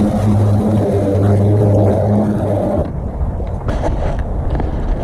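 Greenworks cordless electric lawnmower running with a steady motor hum, which cuts off suddenly about three seconds in, leaving wind noise on the microphone and a few faint clicks.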